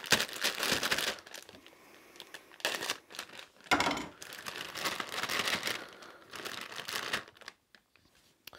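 Plastic bag of cut potato wedges crinkling in several irregular bouts as it is handled and opened.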